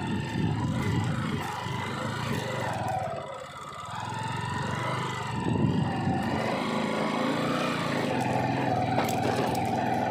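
Bajaj Discover single-cylinder motorcycle engine running under way, easing off about three seconds in and picking up again about two seconds later.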